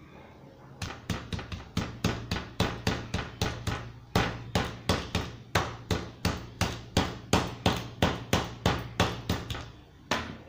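Raw chicken breast under cling film being pounded flat with a heavy metal cylindrical pounder on a plastic cutting board. The blows come steadily at about three a second, starting about a second in and stopping about a second before the end.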